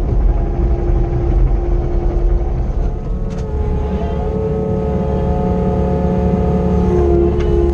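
Kobelco SK55SRX mini excavator's diesel engine running steadily, heard from inside the cab. About three seconds in, a hydraulic whine joins it as the boom and log grab work, shifting in pitch near the end.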